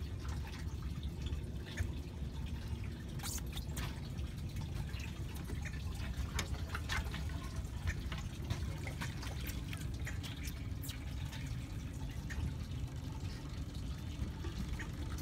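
Small water sounds: dripping and lapping at the boat's hull, with scattered sharp clicks over a steady low rumble.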